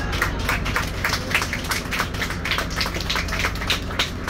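Coast Guard MH-60 Jayhawk helicopter flying close by: a low steady drone with a rapid, slightly uneven run of sharp rotor pulses, about six a second.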